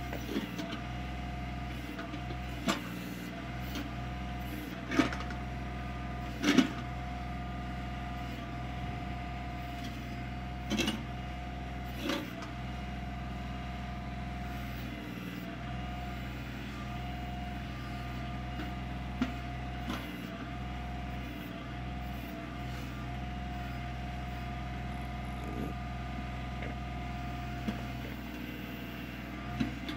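Kioti CK25 compact tractor's three-cylinder diesel engine running steadily with a steady whine over it, while the KB2465 backhoe is worked: sharp clunks now and then, the loudest about five and six and a half seconds in.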